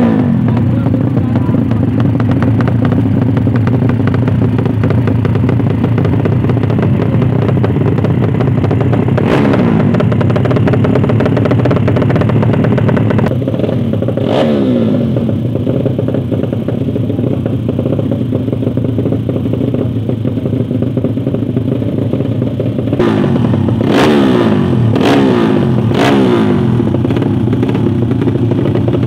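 Small drag-race motorcycle engines running loud and continuous, with sharp rev sweeps that rise and fall away: one near the middle, another soon after, and three in quick succession near the end.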